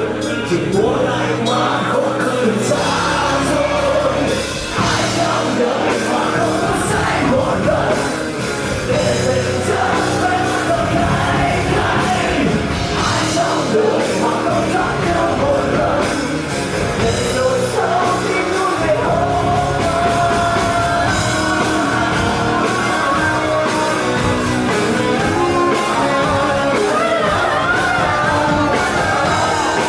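Rock band playing live, loud and continuous, with a lead singer.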